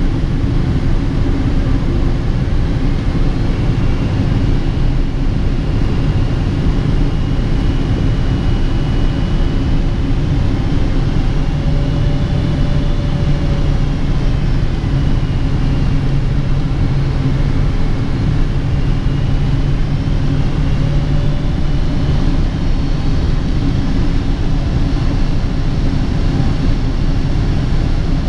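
Cabin noise inside a Boeing 777-200ER on approach: a loud, steady roar of airflow and its Pratt & Whitney PW4090 engines. Faint whining tones drift slowly up and down in pitch, and a low hum comes in about halfway through and fades a few seconds later.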